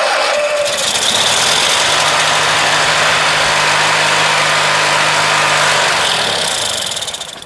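Briggs & Stratton 19.5 hp opposed-twin engine on a Craftsman LT1000 lawn tractor, cranked by the starter, catching and running steadily on carb cleaner sprayed into the carburetor, then dying out near the end. It starts fine but won't keep running on its own fuel, the sign of bad gas with water in the tank.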